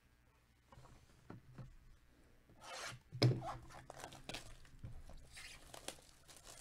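Gloved hands tearing and rubbing the plastic shrink-wrap off a cardboard trading-card box, scratchy crinkling and ripping sounds. A single knock about three seconds in is the loudest sound.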